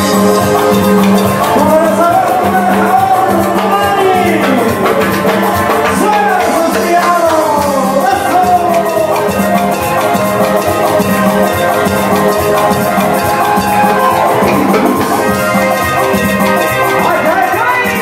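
Loud dance music with a steady pulsing drum beat and a melody line that slides up and down.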